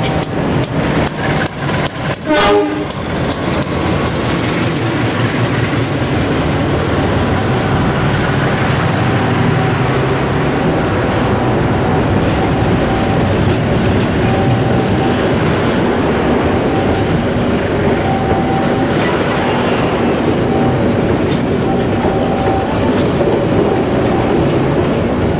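A diesel-hauled passenger train passing close by: the locomotive goes by, followed by a long rake of new passenger coaches rolling past in a steady loud rumble.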